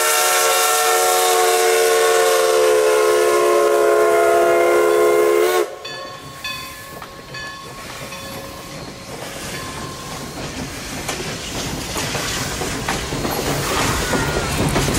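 Steam whistle of 2-6-0 Mogul locomotive #11 blowing a long, loud blast of several tones, cutting off about five and a half seconds in. Then the passenger coaches rolling past, their wheel noise growing louder toward the end.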